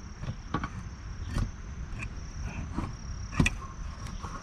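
A few sharp clicks and light knocks from something being handled, the sharpest about three and a half seconds in, over a faint high steady tone.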